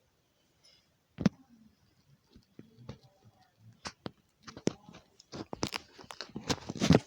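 Irregular sharp crunches and clicks, a single loud one about a second in, then coming thicker and louder through the second half.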